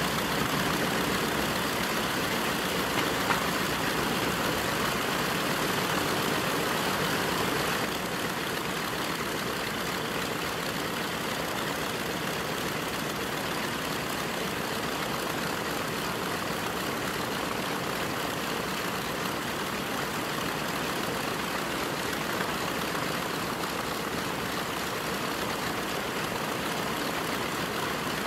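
The B-25J Mitchell's twin Wright R-2600 radial engines idling steadily, stepping down slightly in level about eight seconds in.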